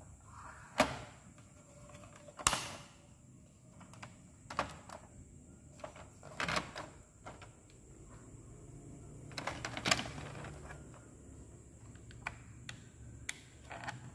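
Hard plastic clicks and knocks from a Playmobil toy dump truck's tipper body and cab being lifted, fitted and pressed back into place by hand. The clicks are scattered, with a handful of sharper, louder knocks among them.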